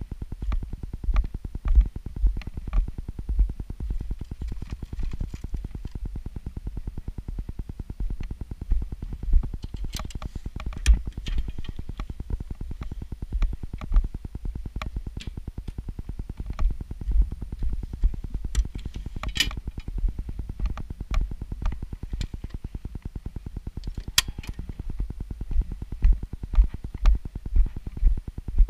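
Handling noise on the camera: irregular low thumps and knocks, with a few sharp clicks, the thumps coming about twice a second near the end.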